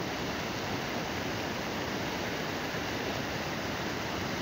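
Water pouring over a low concrete canal weir: a steady, even rushing.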